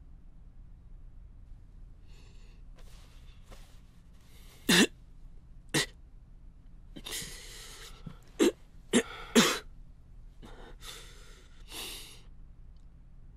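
A man coughing, five sharp coughs in two clusters, with gasping breaths between them as he comes round from unconsciousness.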